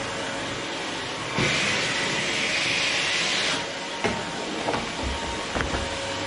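Vacuum cleaner running steadily. About a second and a half in, its hiss grows louder and higher for about two seconds, then drops back, and a few sharp knocks and clicks follow.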